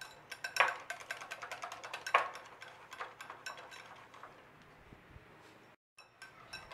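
Wire balloon whisk beating thick gram-flour (besan) batter in a glass bowl, its tines ticking and clinking rapidly against the glass. The beating aerates the batter for boondi. The sound breaks off briefly near the end.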